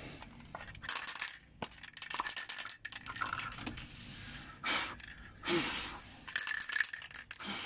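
Aerosol spray-paint can being shaken, its mixing ball rattling inside in several bouts of quick metallic clicks.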